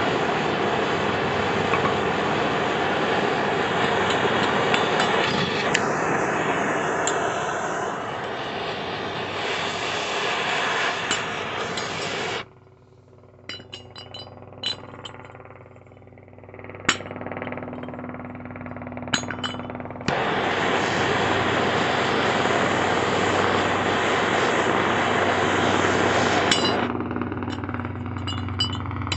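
Handheld gas torch burning with a steady rushing hiss as it heats a steel pulley, shutting off abruptly about twelve seconds in. Then a few sharp metallic clinks of a small sledgehammer tapping the hot pulley down its shaft, before the torch comes back on for several seconds and more hammer clinks follow near the end.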